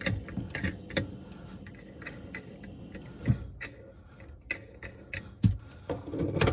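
Sharp, irregular clicks and small knocks from the plastic mounting nut of a counter-mounted soap dispenser being tightened from under the sink, plus the handling around it. The clicks come quickly at first, then thin out to a few louder knocks.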